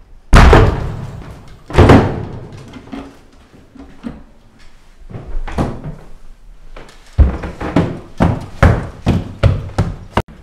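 A series of loud, sharp bangs in a reverberant interior: two single bangs near the start, each ringing away over about a second, then a quick run of about seven bangs roughly two a second near the end.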